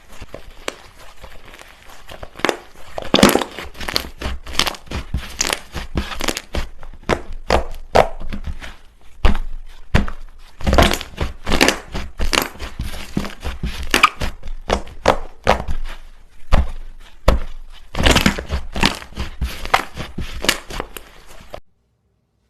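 Slime being squeezed, poked and stretched by hand, giving a dense, irregular run of sticky clicks and crackling pops in bursts. It cuts off suddenly near the end.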